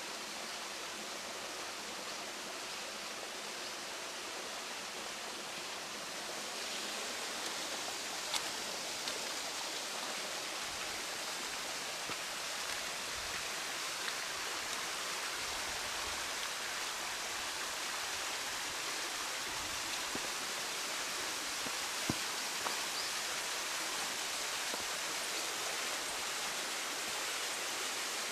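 Mountain stream rushing steadily over rocks, growing a little louder about six seconds in, with a few faint ticks.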